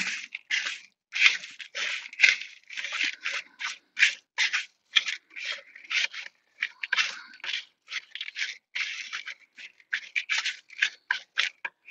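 Wooden spoon stirring seasoned bread stuffing in a plastic mixing bowl as chicken stock is worked into it: quick, irregular scraping strokes, several a second.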